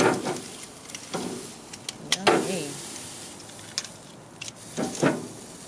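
Metal grill tongs clicking and knocking against the wire grate of a charcoal grill as a steak is lifted and set back down, several separate clacks a second or so apart.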